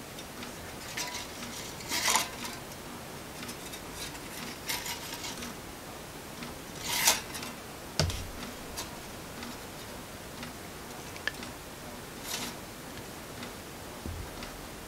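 Faint scrapes and clicks of flat pliers and 0.5 mm piano wire being handled, as the wire is held in the pliers and pushed with a finger to roll it into a hairspring spiral. A sharp metallic click about eight seconds in.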